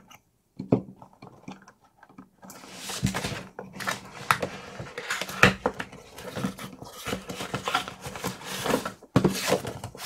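A craft knife slitting packing tape on a cardboard kit box, with a few small clicks, then cardboard scraping and rustling as the box is slid out of its sleeve and handled, with scattered clicks and knocks.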